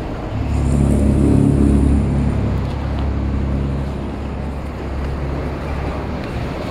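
Stihl MS250 single-cylinder two-stroke chainsaw engine idling at a steady pitch, louder for a couple of seconds near the start.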